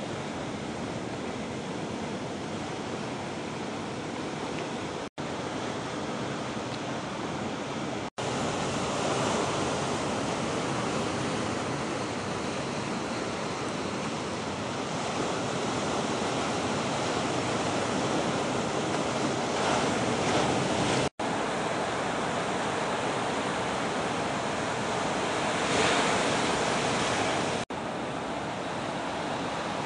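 Ocean surf breaking and washing in a steady rush, with four brief silent gaps.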